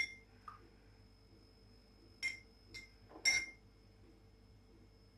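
Metal spoon stirring liquid in a drinking glass, clinking against the glass with short, bright ringing taps: one at the start, then three more between about two and three and a half seconds in.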